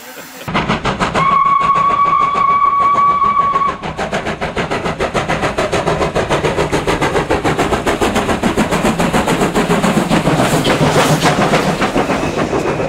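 South African Railways Class 15F steam locomotive passing close by at speed with a passenger train, its exhaust beating in a fast, even rhythm. About a second in, its whistle sounds one steady note for about two and a half seconds.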